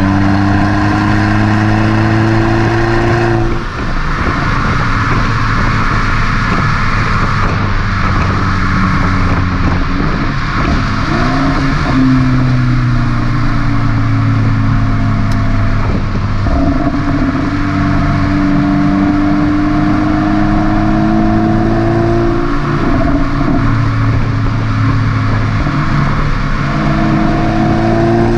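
VW Golf V GTI's 2.0-litre turbocharged four-cylinder heard at its twin tailpipes while driving. The engine note rises slowly under acceleration and breaks off briefly about four times, dropping back in pitch before climbing again, with tyre and road noise beneath.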